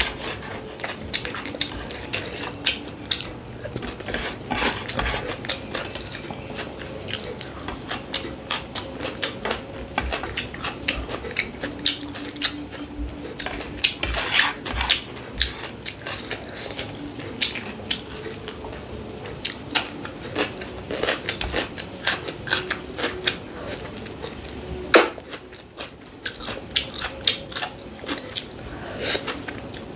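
Close-miked eating: biting and chewing food with many short clicks and smacks, and now and then a clink of a plate.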